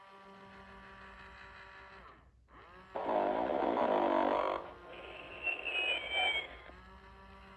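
Snoring Ernie talking toy playing its snore: a loud in-breath snore about three seconds in, then a quieter out-breath with a high, wavering whistle, over a steady faint electronic hum.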